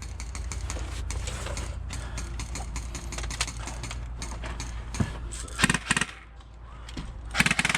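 Airsoft gun fired in two short full-auto bursts of rapid clicks, about two seconds apart near the end, over steady rustling and wind rumble on the microphone.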